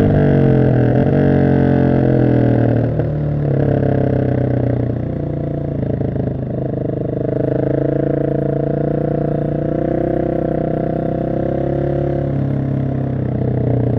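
Husqvarna 701 SM's single-cylinder engine, breathing through an Arrow exhaust with the catalyst removed and the dB killer fitted. It comes off the throttle with the revs falling over the first few seconds, then holds steady at low revs.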